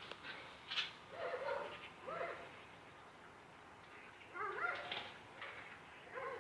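Animal calls: short, pitched cries that rise then fall, in several clusters, with a quieter gap in the middle.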